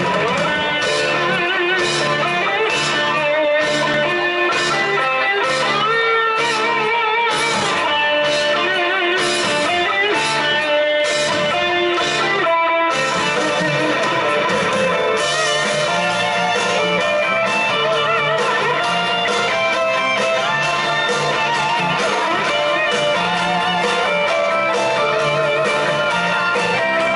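Live rock band playing an instrumental intro, with electric guitar to the fore and regular percussive strokes under it. The music breaks off briefly about 13 seconds in, then the full band carries on.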